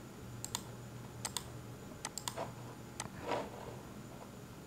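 Computer mouse buttons clicking: a handful of sharp, separate clicks, several in quick pairs, with a soft brushing sound about three seconds in.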